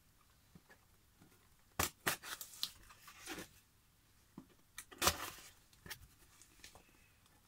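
Scissors cutting open a cardboard box: a handful of short, sharp cutting and tearing sounds with pauses between, the first about two seconds in.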